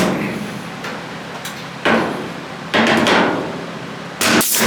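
Hammer blows on sheet metal: a few separate strikes roughly a second apart, each followed by a short ring-out.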